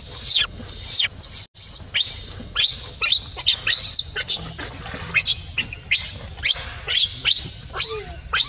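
Baby macaque screaming in distress: repeated shrill cries, about two a second, with only short breaks.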